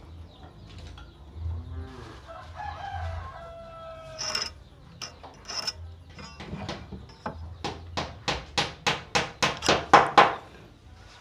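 Carpenter's pencil scratching on a wooden board while lines and marks are drawn against a steel ruler, ending in a run of quick strokes about three a second. A faint pitched animal call sounds about two seconds in.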